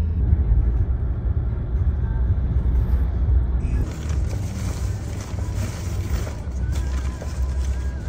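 Low rumble of a car driving. About four seconds in, a steady hiss of rain and tyres on a wet road joins it.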